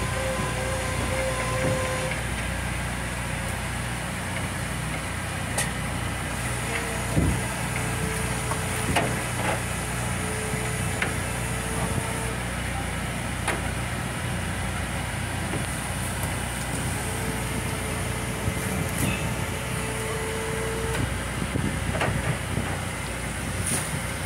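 Steady engine and machinery drone with scattered knocks and clanks. A steady whine comes in twice, each time for about five seconds.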